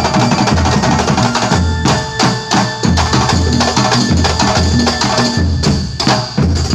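Kuntulan ensemble of terbang frame drums and bass drum playing a driving, steady rhythm, with sharp slapped strikes over deep repeating drum beats.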